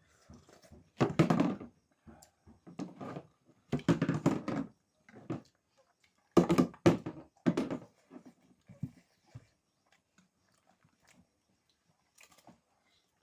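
Close-up eating sounds from a mukbang meal of chicken momos and bone soup: several loud bursts of chewing and mouth noises with short pauses between, growing sparse in the last few seconds.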